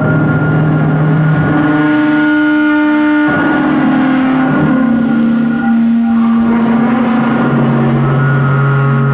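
Drum feedback: miked drums feeding back through the amplification, giving loud sustained droning tones. The drone steps between several held pitches, jumping higher about two seconds in, settling a little lower, and a deeper tone returns under it near the end.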